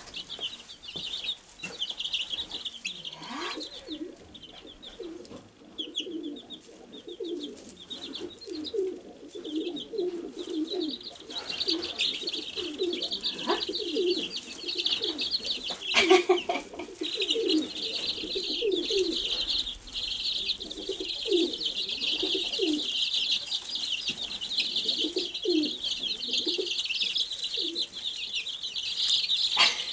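A brood of Wyandotte bantam chicks peeping in a continuous high chorus, with lower bird calls underneath and a sharp knock about sixteen seconds in.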